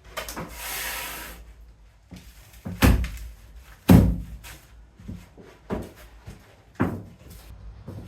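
A wooden subfloor board scraping against the floor as it is worked into place, then a few sharp knocks of wood against wood as it is bumped and pushed in.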